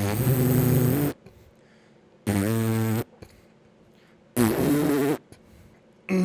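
Fart noises, three pitched blasts of about a second each with short silent gaps between them, and a fourth beginning near the end.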